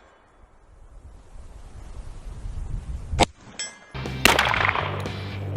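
A single pistol shot about three seconds in, followed a moment later by a short metallic ding. From about four seconds, louder background music with a steady beat takes over.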